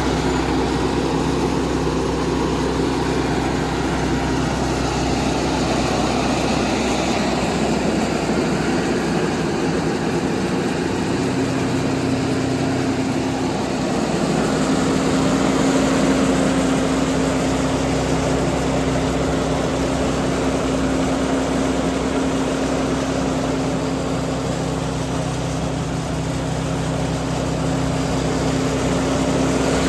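Heavy road-construction machinery with its engines running steadily: a continuous low engine hum with one strong steady tone, a little louder about halfway through.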